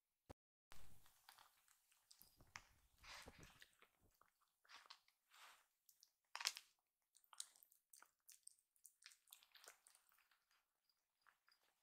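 Faint, irregular wet clicks and smacks of a kitten's mouth and tongue as it licks and swallows liquid medicine pushed in from an oral syringe.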